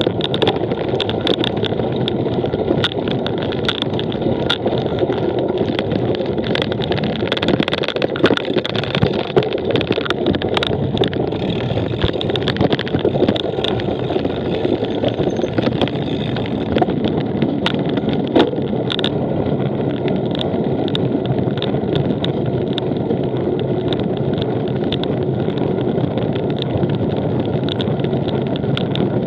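Cyclocross bike ridden over rough ground: a steady rumble of the tyres, with frequent rattles and clicks from the bike throughout.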